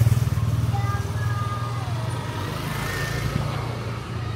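Motorcycle engine running at low revs close by, loudest at the start and slowly fading as it moves away.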